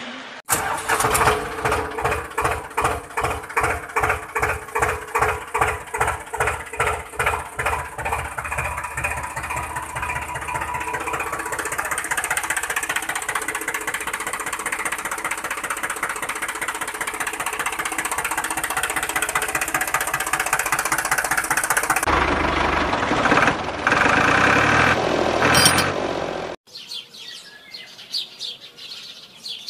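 A motor running with a rhythmic chugging pulse that quickens until it becomes a steady run, changing near the end and then cutting off suddenly. Faint bird chirps follow.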